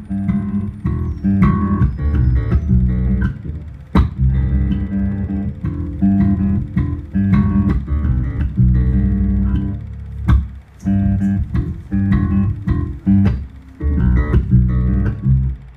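Electric bass guitar played live through an amplifier: low plucked notes and chords ringing out in phrases, with sharp attacks and a couple of brief breaks.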